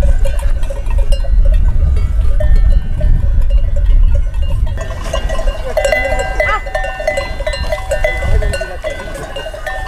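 A flock of sheep with many bells clinking and ringing, and sheep bleating, the bleats stronger from about halfway in, over a steady low rumble.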